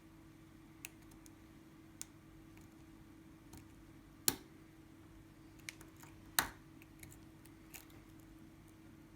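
An ASSA Twin 6000 pin-tumbler lock being picked: a few scattered small clicks of the pick and pins, with two sharper clicks about four and six and a half seconds in, as the driver pins are set.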